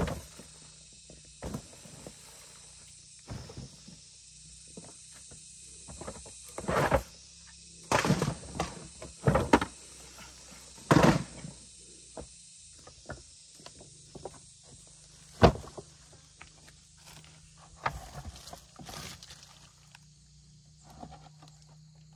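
Irregular knocks, thuds and scrapes of handwork, a sharp knock about two-thirds of the way through, over a steady high hum of jungle insects.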